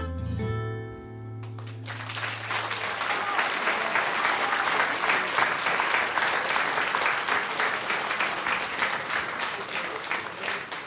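The song's final guitar chord rings out for a couple of seconds. Then an audience applauds, from about two seconds in to the end.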